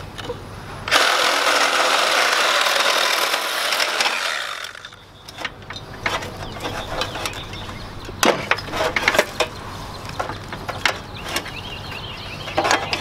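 Milwaukee reciprocating saw cutting through a copper refrigerant line at an AC compressor, starting about a second in and running for about three and a half seconds before fading out. Then a series of light clicks and knocks as the wiring and tubing are handled.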